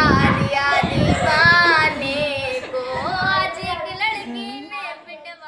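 A young girl singing solo, her voice sliding and holding long notes, fading out near the end.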